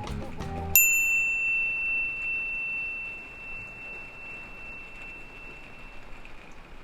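Background music stops, and a single high, bell-like ding is struck once and rings on, fading slowly over about five seconds.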